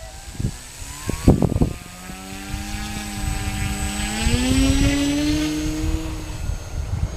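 The E-flite Timber RC plane's electric motor and propeller spinning up for takeoff: a whine that rises in pitch about four seconds in, then fades as the plane climbs away. Wind buffets the microphone, with a few knocks early on.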